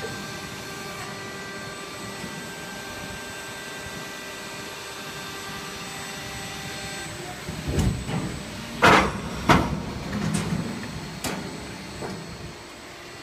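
Running injection molding machines in a workshop hall: a steady machine hum with several tones, then from about eight seconds in a run of loud, sudden clanks and knocks, the loudest near nine seconds.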